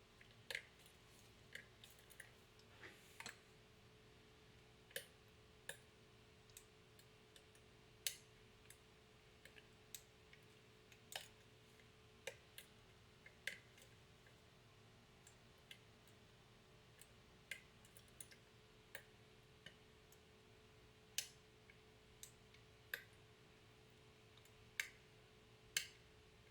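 Faint, irregular metallic clicks of a lock pick working the pins of a pin-tumbler challenge lock, about one click a second with uneven gaps, over a faint steady hum.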